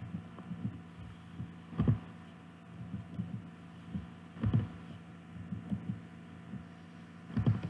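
Keyboard keystrokes and mouse clicks picked up as dull knocks, with three louder ones a few seconds apart, over a steady low hum.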